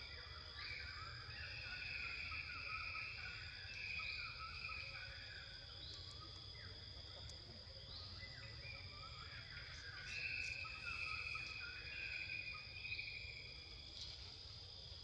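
Insects calling: a steady high trill throughout, with a second chirping call that swells and fades about every two seconds.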